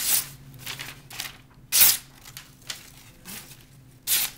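Freshly sharpened Japanese petty knife slicing through a sheet of paper as a sharpness test. There are a few short, hissy cutting strokes, the loudest about two seconds in.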